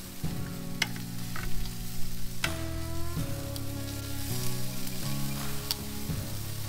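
Chicken wings sizzling over hot charcoal on a grill grate while metal tongs turn them, with a few sharp clicks of the tongs, over background music.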